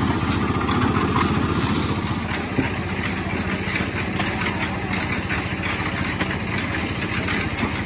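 Small engine on a wheeled machine at a concrete pour, running steadily with a fast, even chugging beat.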